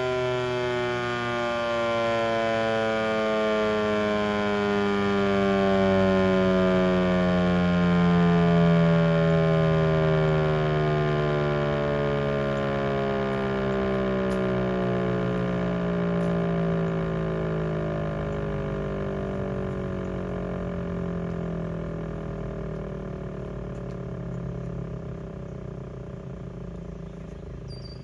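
Federal Signal 508-128 dual-tone outdoor warning siren winding down at the end of a full alert test, its chord of tones falling slowly in pitch and fading away.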